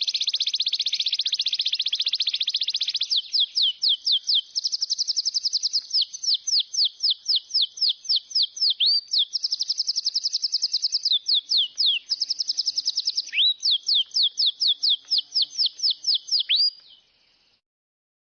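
A songbird singing a long, continuous high-pitched song of very fast trills broken by quick downward-sweeping notes; it cuts off suddenly near the end.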